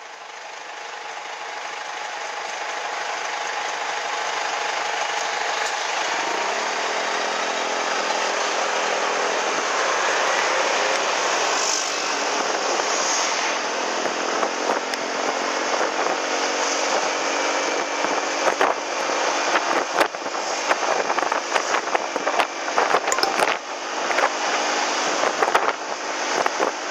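Yamaha scooter's small engine running under way, rising in pitch as it speeds up several seconds in, mixed with road and wind noise that buffets the microphone more in the second half. The scooter has just been repaired and is on a break-in ride.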